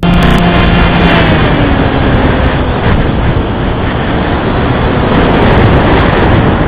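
Loud, steady rushing noise on the onboard audio of a small FPV RC plane in flight, with a faint whine that drops slightly in pitch over the first couple of seconds.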